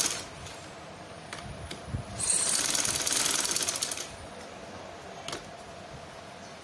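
Sewing machine stitching in two short runs of rapid, even strokes: one ending right at the start and another from about two seconds in to four seconds in. In between and after, quieter handling of the fabric as it is turned at a scallop point with the needle left down, with a single click about five seconds in.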